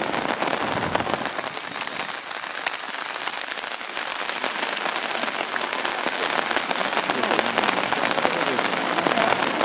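Steady rain falling, with many small raindrop hits close to the microphone.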